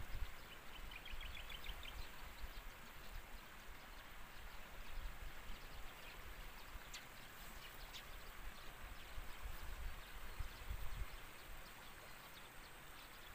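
Quiet outdoor ambience by the water with low, uneven wind rumble on the microphone. A short, rapid high trill, likely a bird, comes about half a second in.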